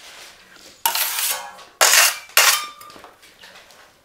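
Steel plastering tools clinking and clattering as they are handled and set down: three sharp metallic clatters, about a second in and then twice more, the last ringing briefly.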